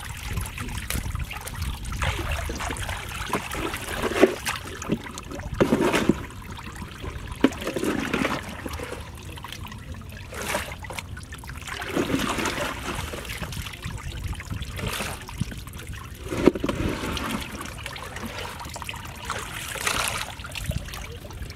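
Wet fish being scooped and dropped by hand in a wooden boat's water-filled hold, with water trickling and splashing and irregular wet slaps and knocks.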